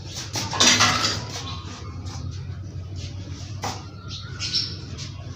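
Indian ringneck parrot calling: a loud, harsh squawk about a second in, then scattered short chirps and clicks, over a steady low hum.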